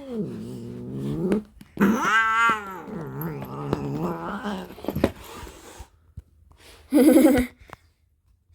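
Upset domestic cat growling and yowling in long, wavering moans, the loudest about two seconds in, then a short hiss about seven seconds in.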